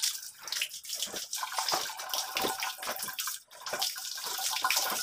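Water running and splashing in a plastic basin as small aquarium ornaments are washed and scrubbed by hand, with irregular splashes and sloshes throughout.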